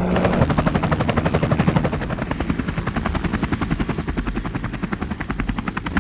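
Helicopter rotor blades chopping steadily in a fast, even beat.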